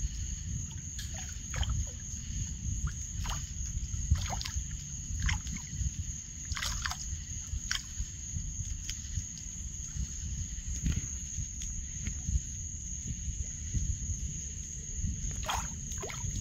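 Waterside night ambience: a steady high-pitched insect trill over a low rumble, with scattered short water splashes and drips.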